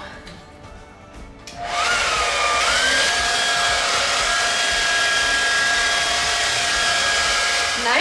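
Hesley handheld hair dryer switched on about a second and a half in, its motor whine rising as it spins up and then running steadily, blowing hot air.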